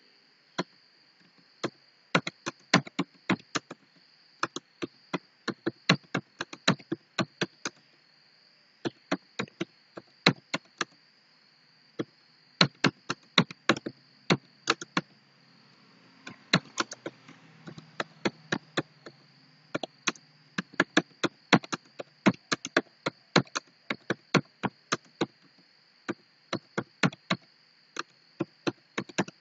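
Laptop keyboard being typed on: quick runs of key clicks broken by short pauses, as a typing test is taken. A faint steady high-pitched whine runs underneath.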